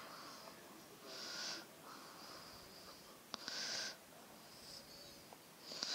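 A person's breathing, heard close up: three audible breaths about two and a half seconds apart, with a single faint click just before the second.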